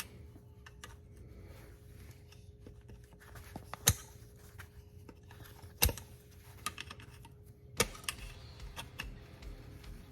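Pliers clicking against a loosened broken bolt as it is gripped and turned. Three sharp metallic snaps come about two seconds apart among lighter ticks, over a faint steady hum.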